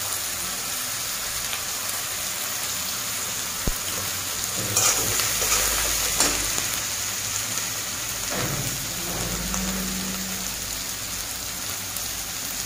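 Chopped onion, tomato and carrot frying in oil in a metal kadai with a steady sizzle, while a metal spatula scrapes and stirs the pan a few times in the second half.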